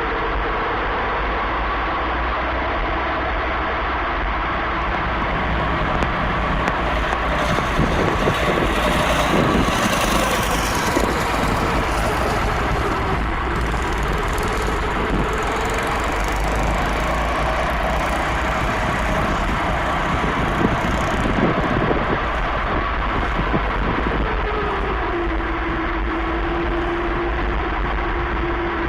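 Go-kart's small engine running as the kart is driven, its pitch wandering up and down with speed and settling lower in the last few seconds.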